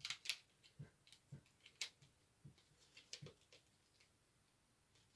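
Scattered small clicks and taps of a plastic CD jewel case being handled and opened, stopping about three and a half seconds in.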